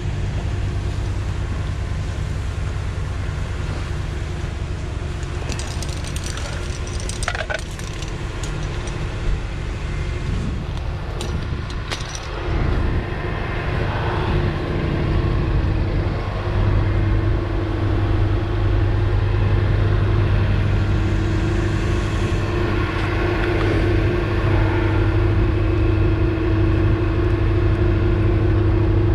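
Tow truck engine idling with a steady low hum that grows louder about halfway through, with metal chains clinking in the truck's toolbox near the end.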